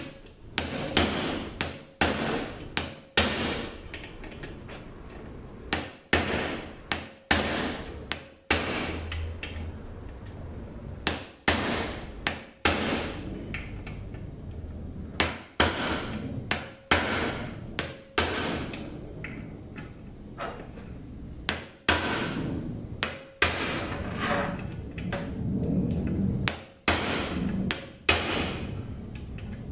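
Hammer blows on a hand impact driver (shock driver) to break loose the T40 Torx bolts on a ZF5HP24 transmission case, with sharp metallic strikes coming singly or in quick pairs and triples every few seconds, each ringing briefly.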